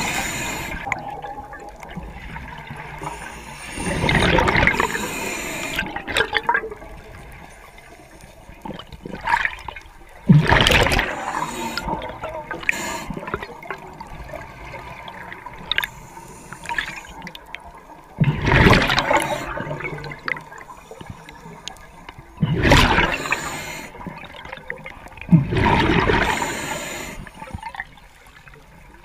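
Scuba diver breathing through a regulator underwater: about six loud gushes of exhaled bubbles a few seconds apart, with quieter hissing between them.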